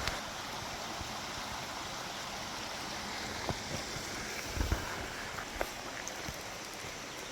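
Waterfall rushing steadily, with a few light knocks about halfway through.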